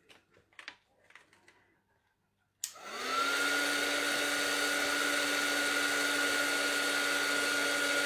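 A few faint small taps, then a craft embossing heat gun switched on with a click about two and a half seconds in. Its fan spins up with a briefly rising tone and settles into a steady hum over rushing air as it heats embossing powder on a paper leaf.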